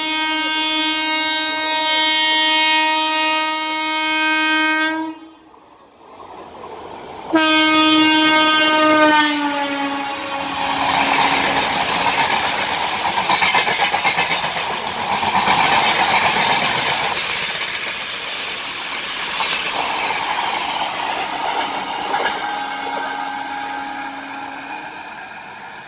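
WAP-7 electric locomotive's air horn sounding a long blast, then a second blast whose pitch drops as the engine rushes past. The coaches follow with a steady rumble and wheel clatter, and a fainter horn blast comes near the end.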